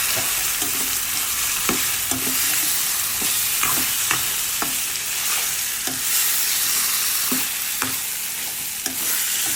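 Marinated chicken pieces sizzling in hot oil in a kadai (wok), with the spatula knocking and scraping against the pan about every half second as the chicken is stirred and fried.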